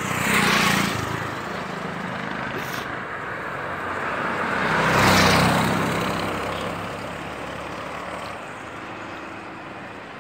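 Steady road and engine noise heard from inside a moving vehicle, with two other vehicles passing close by in a rising and falling whoosh, the louder one around five seconds in.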